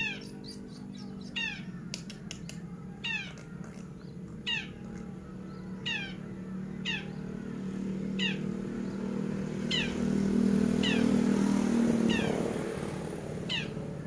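Long-tailed shrike (cendet) calling over and over, short sharply falling notes about once a second. A steady low hum runs underneath and grows louder for a few seconds past the middle.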